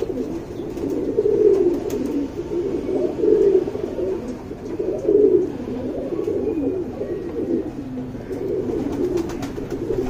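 Domestic pigeons cooing: a low, wavering coo that goes on without pause and swells every second or two.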